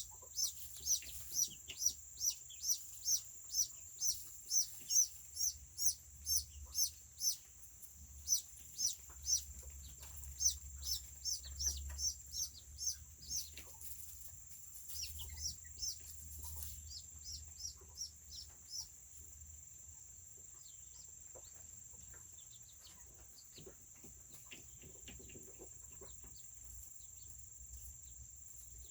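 A chick peeping over and over, short high falling peeps about two a second, fading out about two-thirds of the way through. A steady high insect drone runs underneath.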